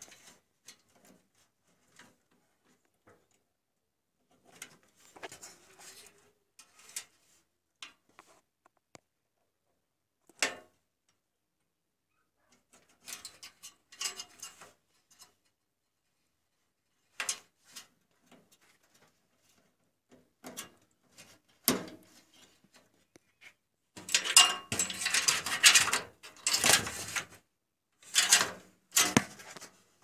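Handling noise from fitting front-panel header wires onto motherboard pins: scattered small clicks, taps and rustles of wires and plastic connectors, then a denser, louder stretch of rustling and scraping near the end.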